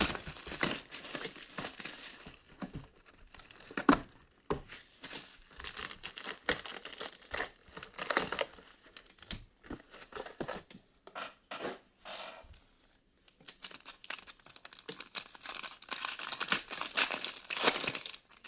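Plastic wrapping crinkling and tearing in irregular bursts as a sealed Spectra football card box is unwrapped and opened, busiest near the end.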